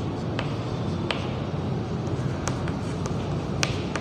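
Chalk tapping and scratching on a chalkboard as a word is written, a few sharp ticks over a steady background hiss.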